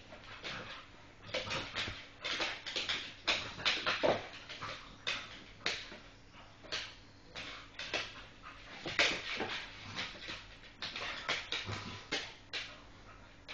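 Staffordshire bull terriers tussling, making a quick, irregular run of short dog noises one after another.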